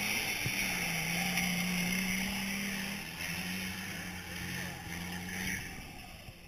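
4x4 SUV engine running steadily under load as it drives through shallow river water, with a hiss of splashing water. The drone fades out about five and a half seconds in.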